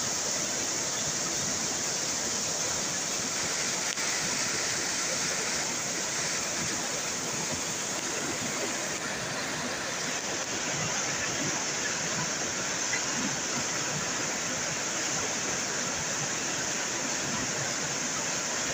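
Swollen, fast-flowing river in flood rushing over stones: a steady, unbroken rush of water.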